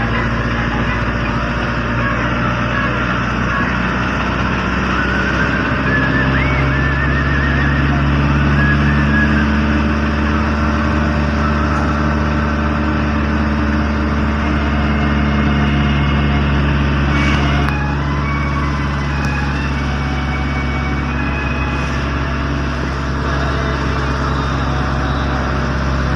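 Car engine and road noise heard from inside the cabin while driving, a steady drone whose engine pitch steps up and down a few times as speed and gears change.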